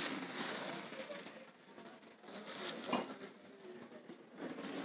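Rustling and scraping handling noise on a phone microphone as it is carried and swung, with faint voices in the background.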